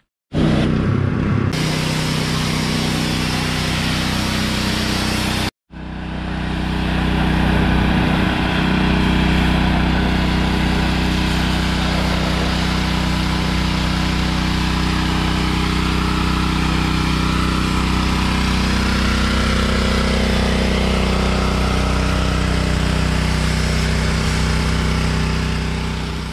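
Small engine running at a steady speed, with a broad hiss over it. The sound breaks off for an instant right at the start and again about five and a half seconds in.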